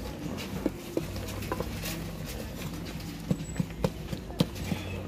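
Wooden spatula stirring chopped vegetables in a metal pot, knocking irregularly against its sides and bottom.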